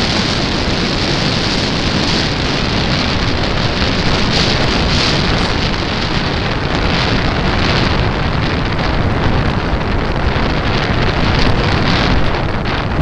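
Steady, loud rush of airflow and propeller noise picked up by the microphone of a small camera mounted on a flying RC model airplane, with a few short knocks near the end.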